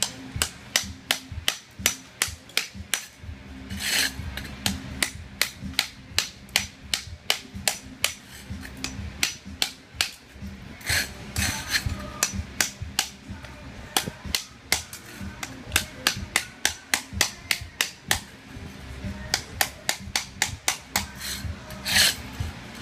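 Claw hammer striking ceramic floor tile over and over to break it up, steady blows about two to three a second, with a few sharper, louder cracks, the loudest near the end.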